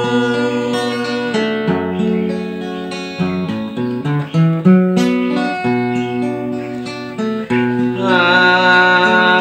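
Acoustic guitar being played, strummed chords with a quick run of picked notes about halfway through. Near the end comes a held, wavering sung note.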